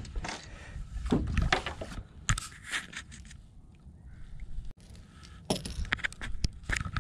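Scattered clicks, scrapes and a light metallic jangle as a largemouth bass is landed by hand at the boat side, the popper lure's hooks rattling at its mouth. The clicks come thicker in the second half.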